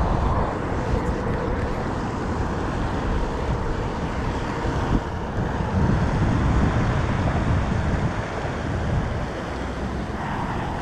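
Wind buffeting the microphone: a steady, uneven rushing rumble.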